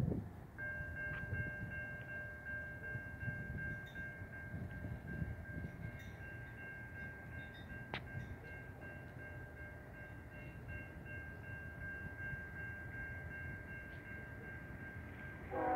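Railroad crossing bell ringing steadily as a freight train approaches, over a low rumble. The train's horn starts sounding loudly just at the end.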